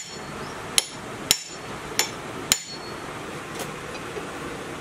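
Four sharp hammer blows on metal at the flywheel hub of a small single-cylinder diesel engine, each with a brief metallic ring, coming about every half second over the first two and a half seconds, then a faint tick.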